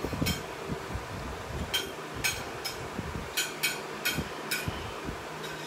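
A metal spoon clinking and scraping lightly against a ceramic plate while eating: a string of short, irregularly spaced clicks.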